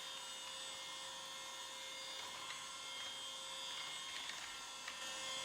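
The 80 W motor of a cordless handheld vacuum cleaner running steadily, a high whine, with a few faint ticks.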